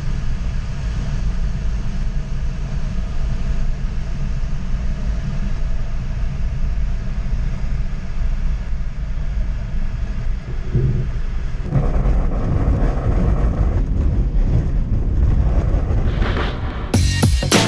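Steady low rumble and rushing noise inside an engineless ASK 21 glider's cockpit as it touches down and rolls out on a grass runway: the wheel running over the turf and the airframe rattling. It turns rougher about two-thirds of the way in, and music starts just before the end.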